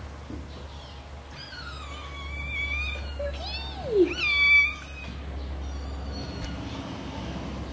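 Several kittens meowing: a run of high-pitched meows between about one and a half and five seconds in, with one lower, falling meow among them and the loudest calls near the middle.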